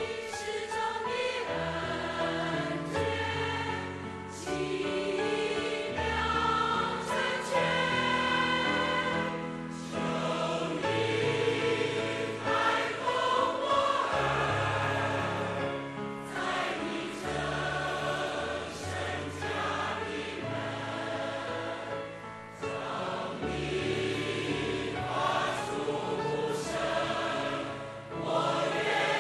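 A large choir singing a hymn in Chinese, in long sung phrases with brief dips between them.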